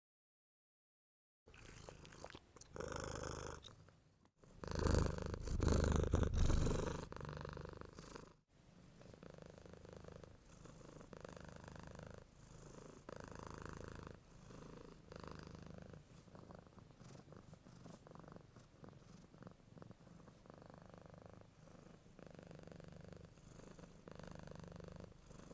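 Domestic cat purring, in a few separate takes after about a second and a half of silence; the loudest, closest purr comes a few seconds in, then a softer purr rises and falls about once a second with the cat's breathing.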